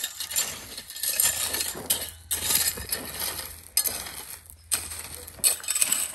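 A rake dragged through loose crushed-stone gravel (tout-venant 0/20), stones scraping and clinking, in repeated strokes with short pauses between them: levelling the fill and smoothing out track marks.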